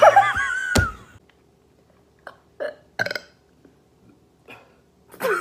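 A woman burping repeatedly: a loud, drawn-out burp at the start with a sharp click in it, a few short burps in the middle, and another loud burp starting near the end.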